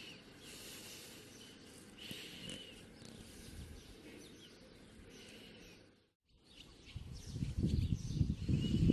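Faint outdoor ambience with a bird giving short chirps a couple of seconds apart. After a brief cut about six seconds in, gusts of wind rumble on the microphone.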